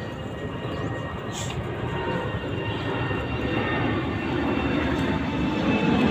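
An airplane flying over, its engine noise growing steadily louder.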